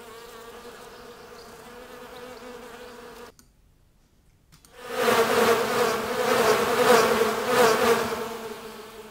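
Bee buzzing sound effect: first a single steady buzz for about three seconds, then after a short pause a much louder swarm of many buzzing bees that swells and fades, the one buzz multiplied into many copies passing through the listening position.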